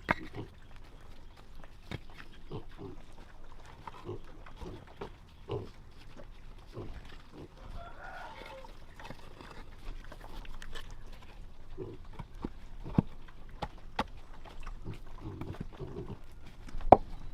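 Pig grunting in short, low grunts, with a few sharp knocks in between, the loudest near the end.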